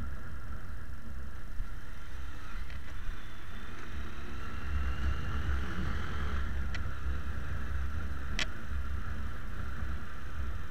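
Motorcycle riding on the road, its engine a steady low rumble under road and wind noise as picked up by a handlebar-mounted action camera. Two short sharp clicks in the second half.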